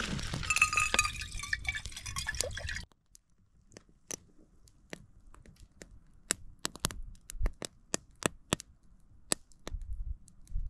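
Campfire preparing morning coffee: a hiss with a few steady whistling tones that stops abruptly about three seconds in. After it, quiet with scattered single sharp crackles.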